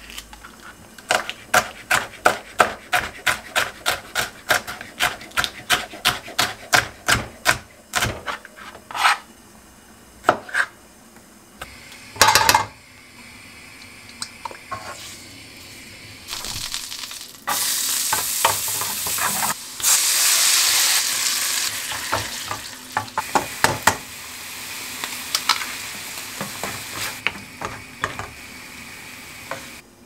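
A knife chopping green pepper on a plastic cutting board, with quick, even cuts about three a second for the first several seconds. Later, butter melting and sizzling in a frying pan over a gas flame, with light clicks of a utensil in the pan.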